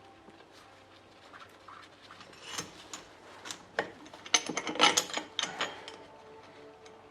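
Metal hand tools and parts clicking and clattering during the teardown of a front swivel hub. Scattered light clicks, then a cluster of sharper, louder clicks and clatters from about halfway in.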